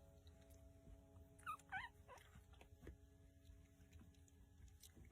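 Faint whimpering squeaks of a newborn puppy: a short run of high squeals about a second and a half in, over a low hum.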